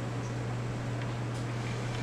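Steady low hum under a few faint, light clicks and rustles from handling cables and connectors.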